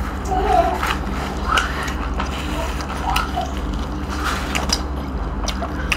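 Chewing and lip-smacking from people eating roast duck with their hands, heard as scattered wet mouth clicks over a steady low hum.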